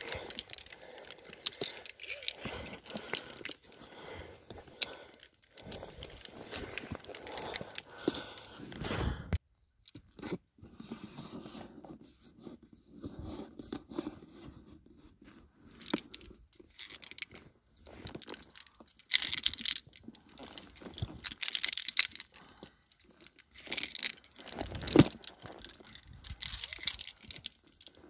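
Metal climbing gear jangling and scraping: carabiners and a handled rope ascender clinking as the ascender is worked up a rope, mixed with brush rustling and scuffs on rock. The sound cuts out completely for a moment about nine seconds in.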